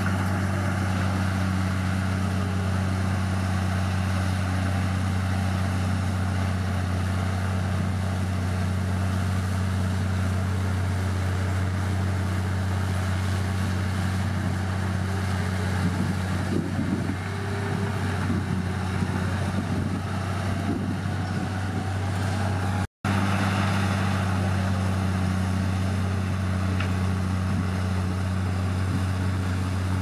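Komatsu D53P crawler bulldozer's diesel engine running with a steady low drone; for several seconds past the middle the sound wavers and shifts, then it breaks off for an instant about three quarters through and resumes unchanged.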